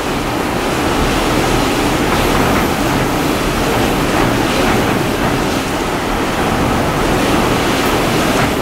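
Super typhoon winds blowing hard outside, heard through a closed window as a loud, steady rushing noise.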